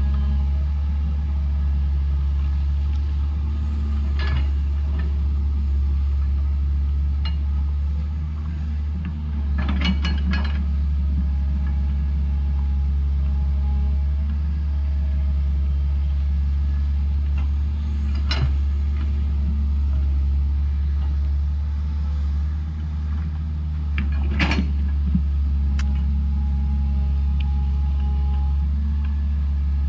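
Heavy diesel engine of a tracked earthmoving machine running steadily with a low rumble, with a few sharp metallic clanks spaced through it, about four in all.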